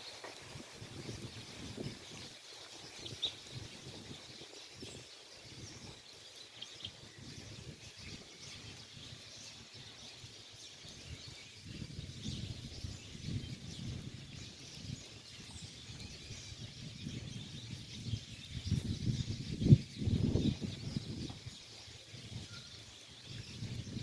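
Wild birds chirping with short, scattered calls over an outdoor background. A low, uneven rumble sits underneath and grows stronger in the second half, with one loud thump about twenty seconds in.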